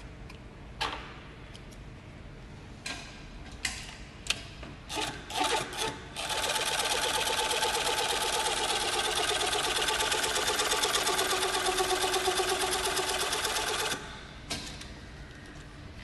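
Industrial sewing machine running at a steady high speed, its rapid stitching rhythm starting about six seconds in and stopping abruptly about eight seconds later. Before it starts, a few sharp clicks and knocks come from handling the machine and the work.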